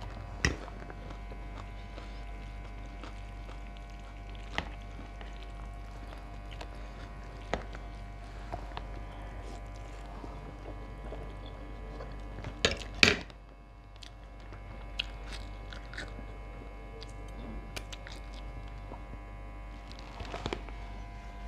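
A person eating spicy instant noodles with a fork: chewing and slurping mouth sounds, with a few short sharp clicks and a louder burst about thirteen seconds in, over a steady low hum.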